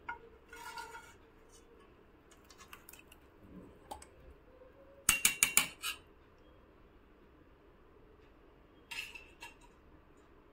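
A kitchen utensil scraping and knocking against a bowl as thick semolina batter is scooped out into a greased mould. Scattered scrapes and light clinks, with the loudest run of quick knocks about five seconds in and a shorter cluster near the end.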